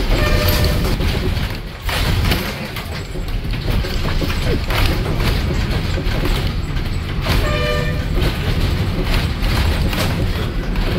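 Bus engine running with a heavy low rumble, heard from inside the cabin as the bus moves. A vehicle horn honks briefly just after the start and again for about a second some seven seconds in.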